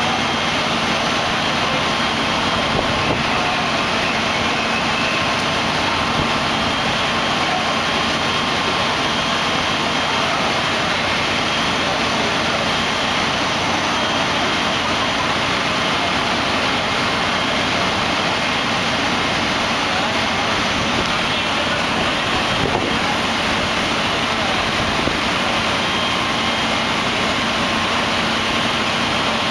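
Fire engines running steadily, a constant mechanical rumble with a few faint steady tones in it, with voices mixed in.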